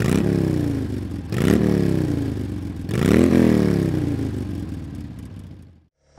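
Motorcycle engine revved three times, about a second and a half apart: each time the pitch climbs fast, then sinks slowly as the revs drop. The last rev fades away to silence near the end.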